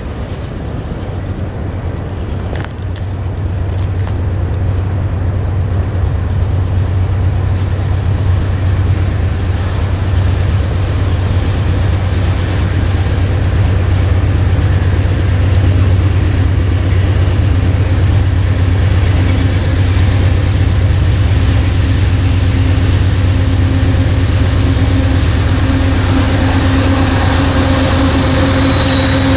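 Canadian Pacific diesel freight locomotives approaching with a steady low engine rumble. The rumble grows louder over the first half and then holds steady as the lead units near, and a faint high whine drops in pitch near the end.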